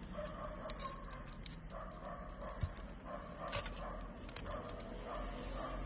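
Small metal jewellery clicking and clinking in quick, irregular ticks as fingers handle a gold-tone filigree brooch and its pin.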